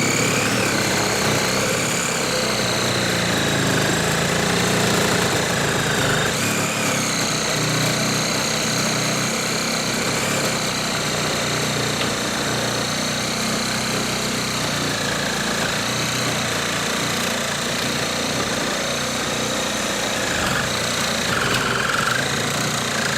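Hart HPRS01 20-volt cordless reciprocating saw cutting steadily with a Milwaukee 9-inch carbide-tooth blade, a continuous loud buzz with a high whine that wavers slightly in pitch as the blade works through the cut.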